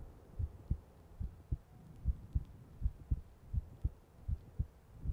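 A person's heartbeat: a low double thump repeating steadily about 80 times a minute.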